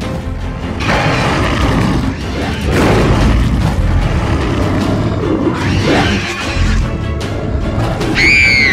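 Background music with dramatic sound effects laid over it, including low booms, and a short gliding tone that rises and drops away near the end.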